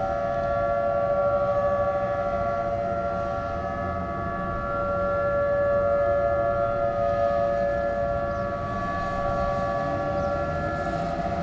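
Outdoor tornado warning siren sounding during a siren test, held at a steady pitch with several tones sounding together. Its loudness swells and fades slowly, peaking about a second in and again about six seconds in.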